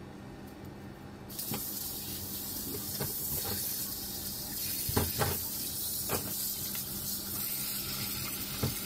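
Kitchen tap turned on about a second in, water running over a needlefish and into a stainless steel sink as it is rinsed. A few knocks come from the fish and hands against the sink.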